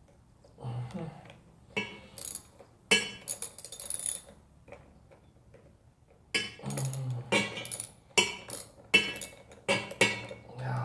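Irregular metallic clicks, clinks and rattles of wire and hardware being fitted and tightened on car-battery side-post terminals, in two busy clusters with a short lull between.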